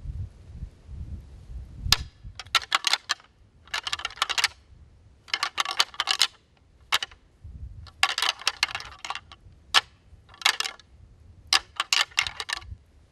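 Deer antlers rattled together by hand in about eight short bouts of sharp clicking and clacking, starting about two seconds in: rattling that imitates two bucks sparring, to call a buck in.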